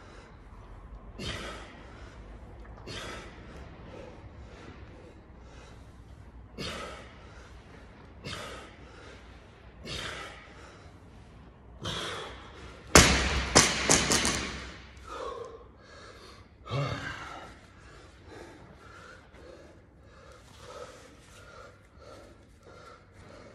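A weightlifter breathing hard, with a sharp exhale every couple of seconds through barbell squat reps. About halfway through, the loaded barbell is dropped onto the rubber gym floor: a loud thud and a few quick bounces. Heavy breathing goes on after.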